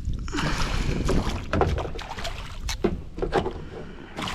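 A string of sharp knocks and rattles over a low rumble as a small smallmouth bass is netted and handled aboard a kayak.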